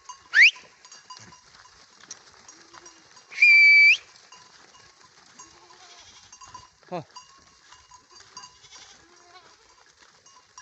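A flock of goats and young kids bleating while being driven along, many faint overlapping calls. Two loud high whistles cut through, a quick rising one near the start and a steady held one about three and a half seconds in, and a short falling call comes about seven seconds in.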